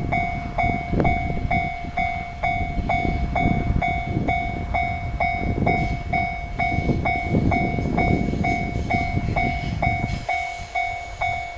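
Japanese level-crossing warning bell ringing steadily at about two strokes a second, while a KiHa diesel railcar rumbles through the crossing. The rumble falls away near the end while the bell keeps ringing.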